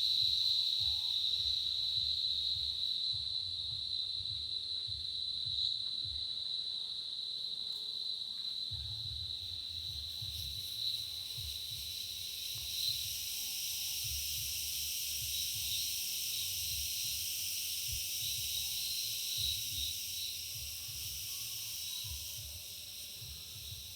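A steady, high-pitched insect chorus drones throughout, growing fuller and shriller about ten seconds in, with a few short chirps over it. A low rumble comes and goes underneath.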